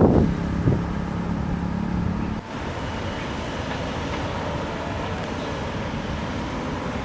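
Steady outdoor background noise, like distant traffic, with a low steady hum that cuts off abruptly about two and a half seconds in.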